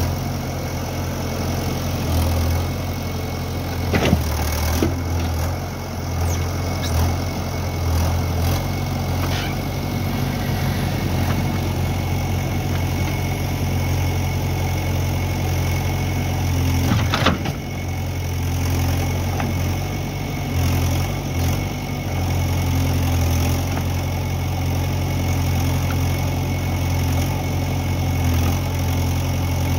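JCB 3DX backhoe loader's diesel engine running steadily while the backhoe arm and bucket work soil, with two sharp knocks, about four seconds in and again about seventeen seconds in.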